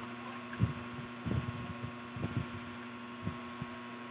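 Close-miked chewing of fried food: soft, low, irregular thuds, several of them through the middle, over a steady electrical hum.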